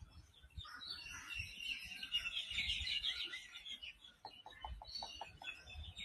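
Birds calling and chattering, followed a little after four seconds in by a quick run of about six short clucking notes.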